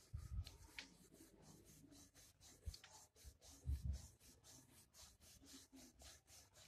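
Rolling pin rolling a stuffed paratha flat on a counter: faint rubbing of the pin over the dough, with a few soft knocks.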